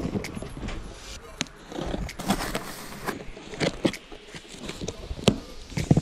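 Cardboard box being opened by hand: flaps folded back and the packing inside rustling, with several light knocks and taps.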